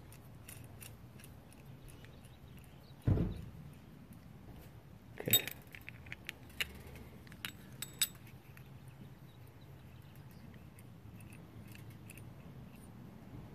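Small metallic clicks and clinks of a micrometer and a valve follower being handled and fitted together, with a dull thump about three seconds in and a sharper clink about five seconds in.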